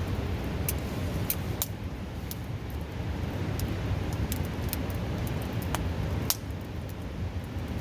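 Wood campfire crackling with irregular sharp pops, a louder one about six seconds in, over the steady low rush of a river close by.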